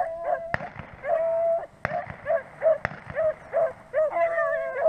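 Beagle baying on a rabbit's trail: a few drawn-out howls, then a run of short, choppy bay notes at about three a second. Three sharp snaps cut in along the way.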